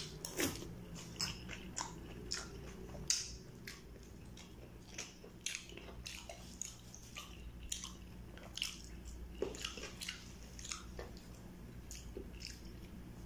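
Close-up mouth sounds of a person chewing and biting kwek-kwek (battered quail eggs) and a cucumber salad: irregular soft clicks and smacks of the mouth, a few every second.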